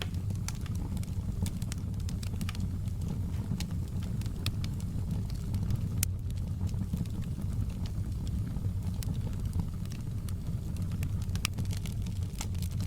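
Open log fire in a fireplace crackling, with irregular sharp pops and snaps over a low steady rumble, and one louder pop about six seconds in.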